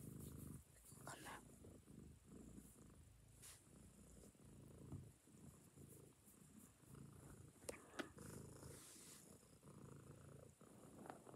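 Domestic cat purring softly and steadily while being petted, with two sharp clicks about eight seconds in.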